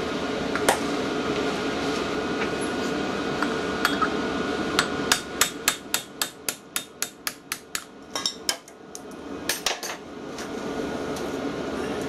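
Light hammer taps on the steel pin of a vintage tractor diesel injector pump held in a vise, driving the pin and spring out: a quick run of about a dozen taps, roughly four a second, starting near the middle, then a few scattered taps.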